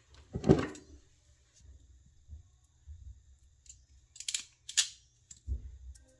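Hand-tool work on wiring: a dull thump about half a second in, then two short sharp clicks a few seconds later.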